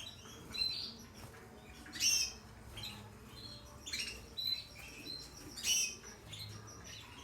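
Caged canaries chirping: short, bright, high calls every second or so, loudest about two seconds in and again near six seconds.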